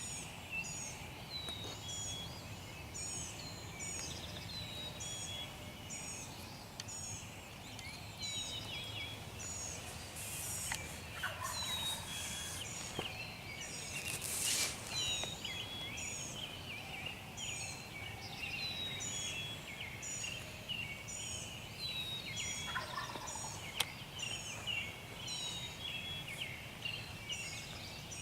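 Wild turkey gobbler gobbling twice, about 11 seconds in and again near 23 seconds, over songbirds repeating a high chirping phrase about once a second.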